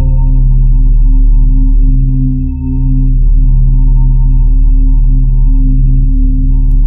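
Loud, steady electronic tones: a low hum with several pitched notes stacked on it, the notes shifting every second or so.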